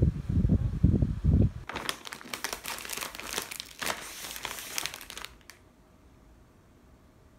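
A low, uneven rumble for about the first second and a half, then plastic food packaging crinkling and rustling as it is handled, for about three and a half seconds, stopping suddenly.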